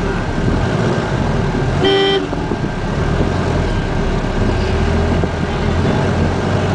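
City road traffic heard from inside a vehicle: steady engine and road rumble, with one short vehicle horn toot about two seconds in.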